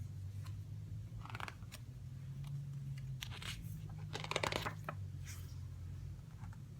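Pages of a paper CD booklet being turned and handled: a few short rustles and scrapes, the loudest about four seconds in, over a steady low hum.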